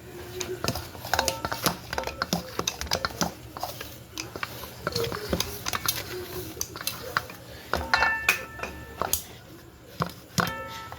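Kitchen clatter: irregular knocks and clicks of utensils and dishes being handled on a counter, with a couple of brief ringing clinks later on.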